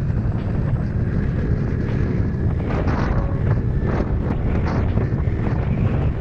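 Wind rumbling on the microphone of a Honda Elite CH80 scooter riding at road speed, with the scooter's engine running underneath.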